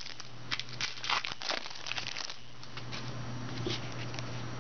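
Crinkling and rustling of foil trading-card pack wrappers and cards being handled, dense crackles for the first couple of seconds and then sparser ones. A steady low hum runs underneath.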